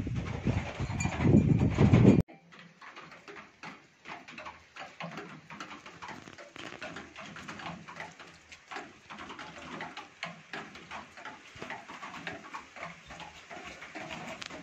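Gusty wind buffeting the microphone, which cuts off abruptly about two seconds in. After that comes a quieter stretch of faint, irregular light ticking that fits light rain pattering.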